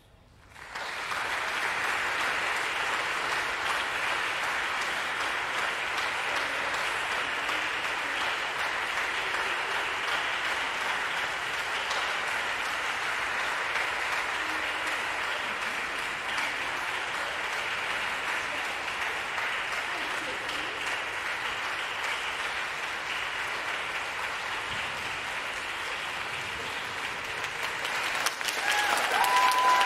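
Audience applauding, breaking out suddenly about a second in after near silence and running steadily; it swells near the end, with a few steady high tones sounding over it.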